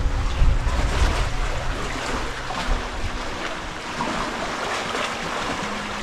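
Wind rumbling on the microphone for the first couple of seconds, over a steady wash of shallow sea water lapping and sloshing along a rocky shore.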